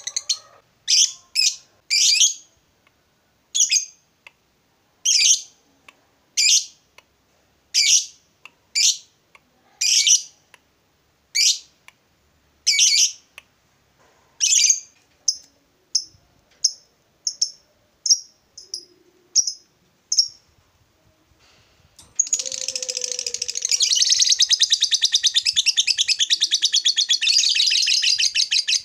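Fischer's lovebird calling: a series of sharp, high single chirps about one a second, growing shorter and quicker. After a short pause it breaks into a long, unbroken rapid chattering trill, the lovebird's drawn-out 'ngekek' song.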